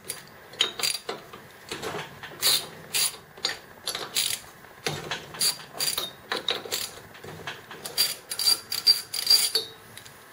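Socket ratchet wrench clicking in short, uneven runs as it is swung back and forth to loosen the cylinder-head bolts of a small flathead engine, some clicks followed by a faint metallic ring.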